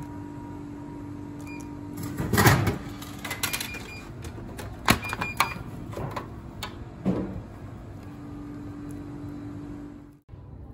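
Drink vending machine dispensing a plastic bottle: a heavy thud about two seconds in as the bottle drops into the pickup tray, then clicks and clunks of the tray flap as the bottle is pulled out, over a steady machine hum.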